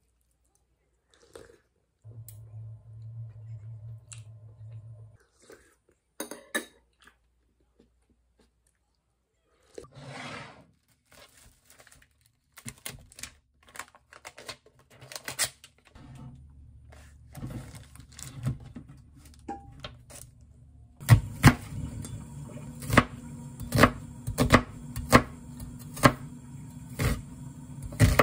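A chef's knife chopping an onion on a wooden cutting board: sharp regular strikes about one and a half a second in the second half, over a steady low hum. Before that, scattered clicks and crinkling as a plastic meat tray is cut open.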